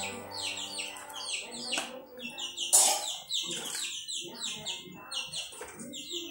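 Many small birds chirping quickly and continuously, short high notes that slide downward, with a brief louder noise about three seconds in.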